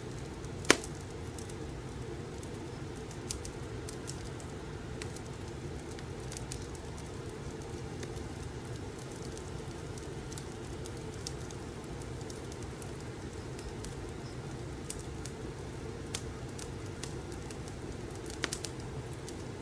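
Fireplace ambience: a steady low rumble of burning logs with scattered sharp crackles and pops, the loudest pop just under a second in and a small cluster near the end.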